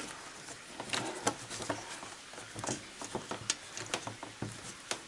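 Gloved hands handling a plastic Hyundai Solaris headlight housing and its bulb socket and wiring: a scatter of small, irregular clicks and knocks of hard plastic.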